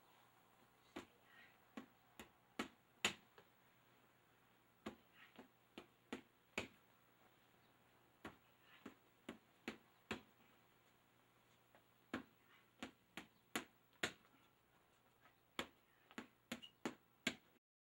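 Boxing gloves striking focus mitts: sharp slaps in runs of about five, roughly two a second, with short pauses between runs.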